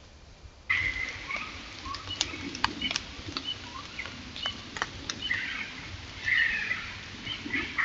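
Unseen animal's short chirping calls mixed with sharp clicks and rustling, starting abruptly about a second in.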